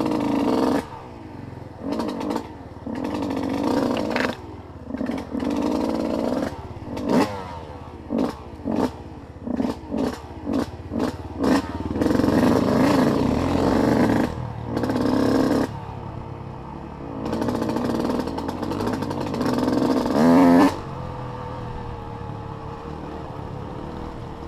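Off-road vehicle engine revved in many short throttle bursts, then held on for longer pulls, the loudest just before the end, after which it drops back to steady low running.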